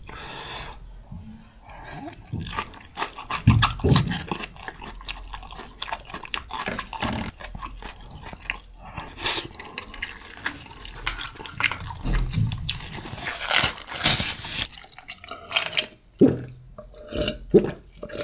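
Close-miked wet chewing and slurping of spicy stir-fried instant noodles, with many small clicks and smacks. Near the end come a series of swallows, about two a second, as a drink is gulped from a glass.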